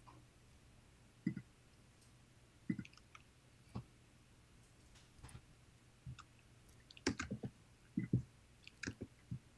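Faint computer keyboard keystrokes and clicks, a few isolated taps and then a quicker run of them about seven to nine seconds in.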